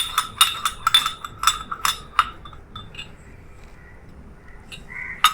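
A spoon clinking against a small bowl as ginger juice is stirred into honey: quick ringing clinks, about four or five a second, for about two seconds, then stopping. A single clink comes near the end.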